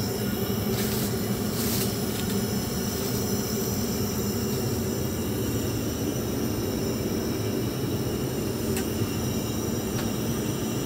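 Steady airliner cabin noise heard inside the aircraft lavatory: a constant rumble and hiss with a low hum. Paper towels rustle twice as they are pulled from the dispenser about a second in, and there are two faint clicks near the end.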